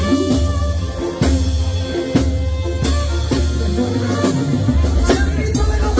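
Live banda sinaloense music, instrumental with no singing: a brass melody of held notes over a steady bass line and regular drum strikes.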